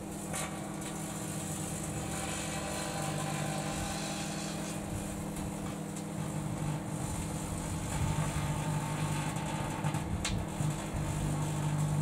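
Old Breville microwave oven running, its transformer humming steadily while Christmas-light wires and LEDs arc inside. A harsher buzz from the arcing swells and fades in stretches, with an occasional sharp crackle.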